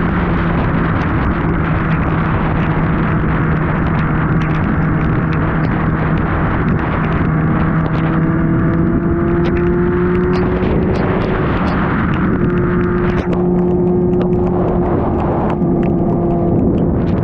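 Superbike engine running steadily at highway cruising speed, its pitch rising slightly near the middle, under heavy wind rush with scattered ticks of rain on the camera.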